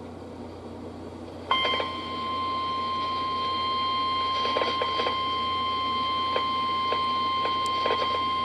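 Weather radio receiver sounding the NOAA Weather Radio warning alert tone. After about a second and a half of receiver hiss, a single steady high tone comes on suddenly and holds, with a few faint crackling clicks over it.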